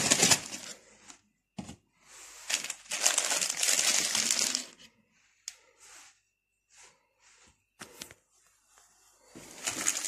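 Foil coffee-mix sachets crinkling as they are handled and spread out on a table. The crinkling comes in bursts, loudest from about two to five seconds in, with a few light clicks and taps between bursts, and starts again near the end.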